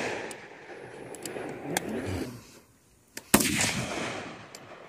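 A single loud rifle shot about three seconds in, ringing out and fading over about a second. A few fainter sharp cracks come earlier.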